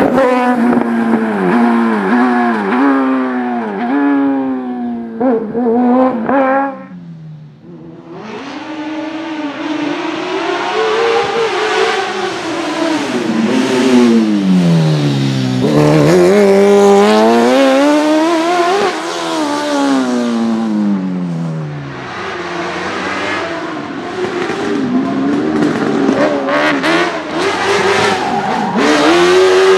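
Motorcycle-engined Proto P2 race cars, small Fiat 500 and Autobianchi A112 specials, running hard one after another. Their high-revving bike engines climb through quick gear changes, then fall back as they brake and rev down.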